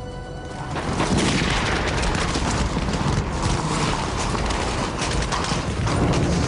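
Dense gunfire: many shots overlapping in a continuous crackle of battle, swelling about a second in.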